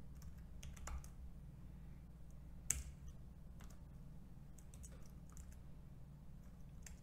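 Computer keyboard typing: scattered keystrokes in short runs, with one sharper, louder key click a little under three seconds in, over a faint low hum.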